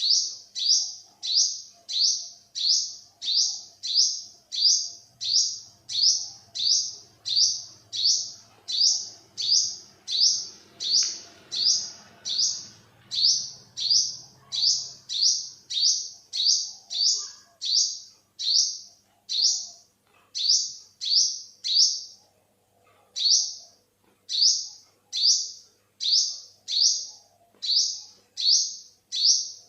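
Olive-backed sunbird calling: one short, high note that falls in pitch, repeated at an even pace of about two a second, with a brief pause about three-quarters of the way through.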